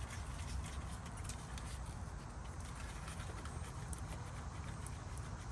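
Steady low background rumble with faint light ticks and taps as the raised front wheel of a 2007 Chevrolet Silverado is rocked top to bottom by hand. No clunk comes from the suspension, which means no play in the ball joints or control arms.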